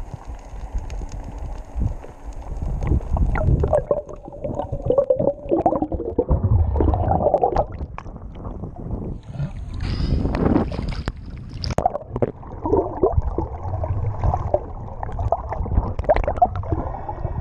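Underwater gurgling and sloshing of water against a moving action camera, with a low churning rumble and scattered sharp clicks. About halfway through, a fizzing rush of bubbles comes as the camera churns through the surface.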